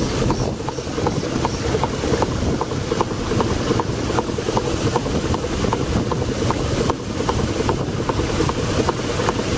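1902 Toledo steam carriage engine running steadily as the launch's power plant, with an even light beat of about three strokes a second over a low steady rumble.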